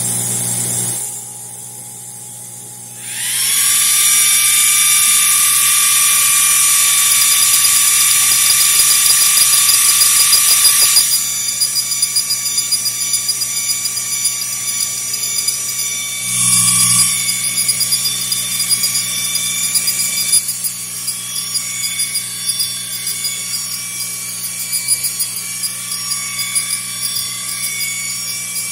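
xTool D1 Pro 40 W diode laser engraver starting an engraving job: about three seconds in a motor spins up with a rising whine to a steady high tone, and from about eleven seconds the stepper motors buzz in quick, uneven pulses as the head scans back and forth burning the text into the wooden board.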